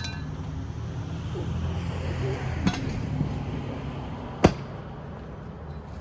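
Sharp clicks or knocks over a low steady rumble: one at the start, one about two and a half seconds in, and the loudest about four and a half seconds in.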